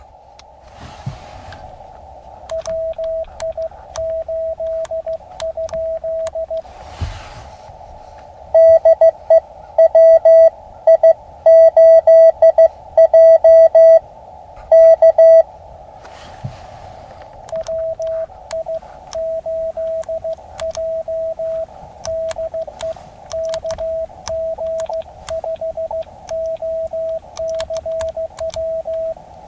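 Morse code (CW) from an Elecraft KX2 ham radio transceiver: a single tone keyed on and off in dots and dashes over the hiss of a narrow CW filter. In the middle there is a louder, harsher stretch of keying, and scattered clicks and a few short bursts of noise come through.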